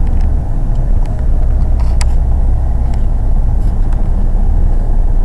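Steady low rumble of a car's road and engine noise heard inside the cabin at highway speed, with a brief click about two seconds in.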